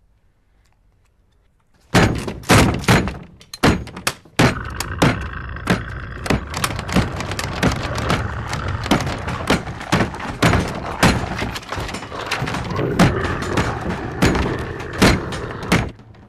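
Heavy, rapid, irregular banging and thudding against a bolted wooden door, starting suddenly about two seconds in after near silence.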